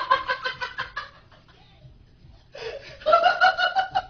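A woman laughing in rapid, high-pitched bursts, a pause of about two seconds, then another run of high laughter about three seconds in.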